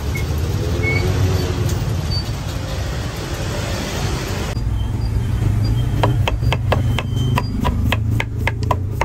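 Low street-traffic rumble and hiss beside a charcoal rotisserie. Midway the scene cuts, and a kitchen knife knocks rapidly against a wooden cutting board as a carrot is sliced, about four strokes a second.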